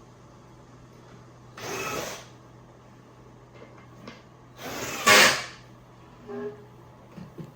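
Wooden bed-frame panels being handled and fitted together: two short bursts of scraping and knocking, the second louder with a sharp knock, then a few light clicks.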